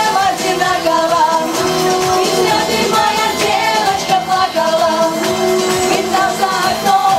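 Upbeat pop song playing, with a steady beat and a melody line.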